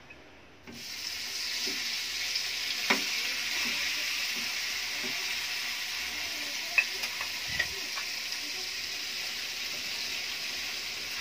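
Salted dried ribbonfish pieces, coated in chilli powder and turmeric, sizzling steadily in hot oil in a pan. The sizzle starts suddenly under a second in, with a few light clicks and taps.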